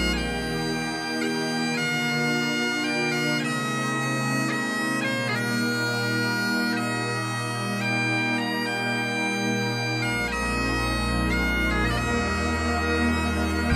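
Bagpipe music: a dance tune played in held, stepping notes over a steady drone.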